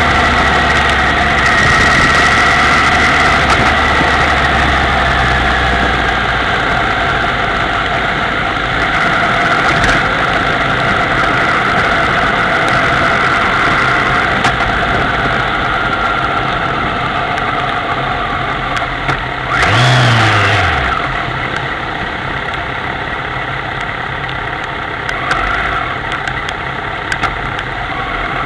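Kawasaki ZX-10R's inline-four engine running at low revs in traffic, under a steady hiss of wind and road noise. About twenty seconds in, a brief louder burst with a falling tone.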